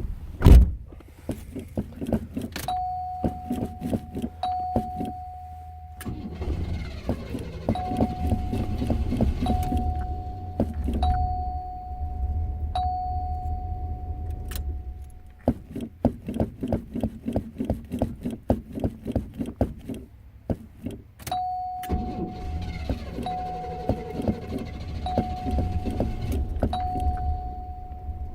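A hard-starting car engine cranked on the starter in long stretches without settling into a run, while a warning chime sounds on and off. There is one loud thump near the start.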